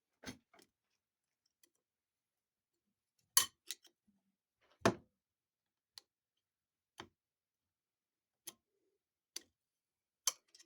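Scattered sharp metal clicks and taps of a screwdriver prying at the snap ring in a TH400 transmission's direct clutch drum. There are about ten of them at irregular intervals, the loudest two about three and a half and five seconds in.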